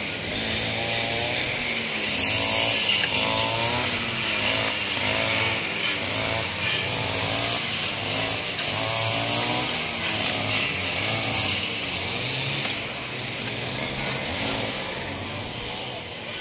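Petrol brush cutter running, its engine pitch wavering up and down as it cuts through grass and brush.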